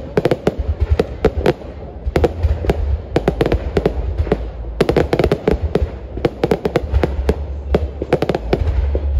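Aerial fireworks display: shells bursting overhead in a rapid, irregular barrage of sharp bangs, several a second, over a continuous deep booming.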